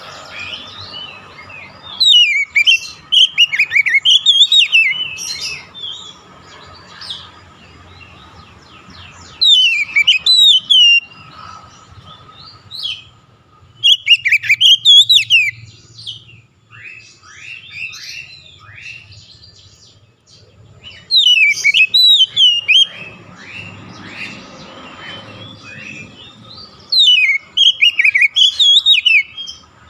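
Oriental magpie-robin singing: about five loud bursts of rapid whistled warbling, quickly rising and falling in pitch, several seconds apart, with softer chirps in between.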